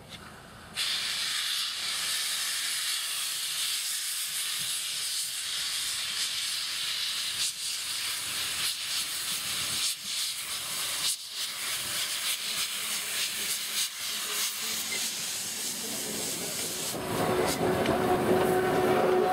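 Steam locomotive blowing steam from its open cylinder drain cocks: a steady, loud hiss that starts suddenly about a second in. Near the end the hiss gives way to the louder, lower rumble of the locomotive's wheels and running gear as it passes close by.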